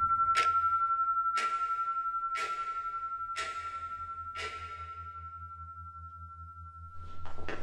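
Wall clock ticking about once a second, five ticks that grow fainter and stop, over a steady high ringing tone and a low hum. A louder, rougher noise comes in near the end.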